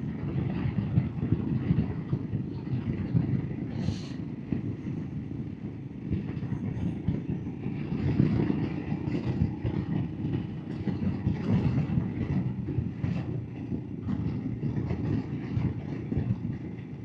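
Royal Enfield Himalayan's single-cylinder engine running at a steady cruise, with its exhaust pulsing.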